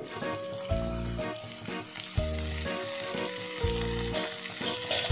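Sizzling of shallots, mango slices and jackfruit seeds frying in hot coconut oil in a pan. Background music runs under it, with a low bass note pulsing about every second and a half beneath held higher notes.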